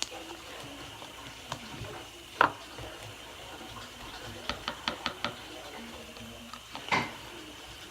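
Sticky, wet fluffy slime of glue, shaving cream and detergent being kneaded and pulled by hand, giving sharp wet pops and clicks. There is one pop a couple of seconds in, a quick run of about six halfway through, and a loud one near the end.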